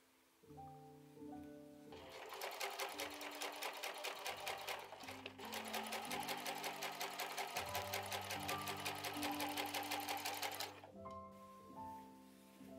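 Electric sewing machine stitching patchwork squares together. It starts about two seconds in, runs at a fast, even stitching rhythm, pauses briefly, runs again and stops a couple of seconds before the end. Soft background piano music plays throughout.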